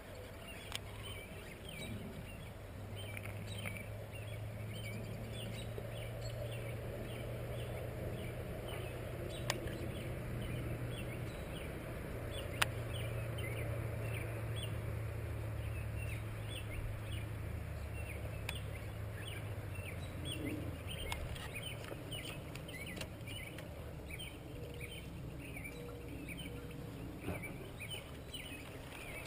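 A dense chorus of short, high chirping calls repeating without pause, over a low steady rumble. A few sharp clicks stand out, the clearest about nine and twelve seconds in.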